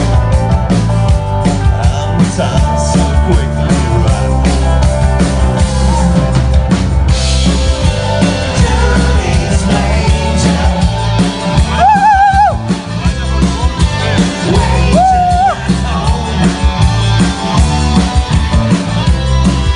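Live rock band playing: drum kit, bass and electric guitars, with two long wavering held notes about twelve and fifteen seconds in.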